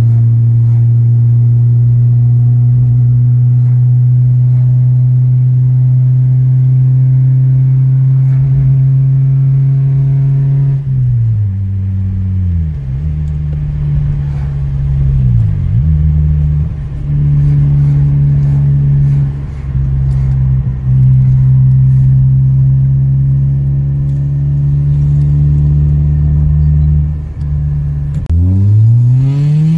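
Toyota Corolla E11's turbocharged 1.3-litre 4E-FTE four-cylinder engine, heard from inside the cabin through its 3-inch stainless exhaust with Simmons Turbonett resonators. It holds a steady drone for about ten seconds. Its pitch then drops and recovers a few times as the revs change, holds steady again, and near the end rises quickly as the engine revs up before falling back.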